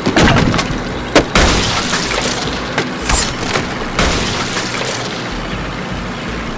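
Loud crash-and-rumble sound effect: a dense, continuous roar of noise broken by several heavy thuds, the sharpest about a second in.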